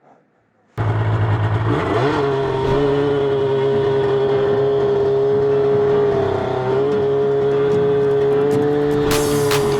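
Arctic Cat M6 snowmobile's two-stroke twin with a D&D Power Pipe exhaust, cutting in abruptly about a second in and running loud at high, nearly steady revs, with a run of sharp crackles near the end.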